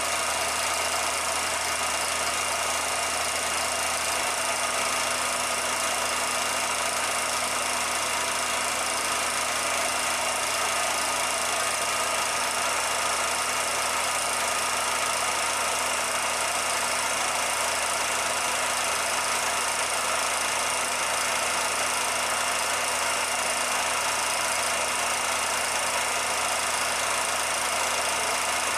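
Steady, unchanging mechanical running noise: an even hiss with a constant low hum and a few fixed tones, with no events or changes.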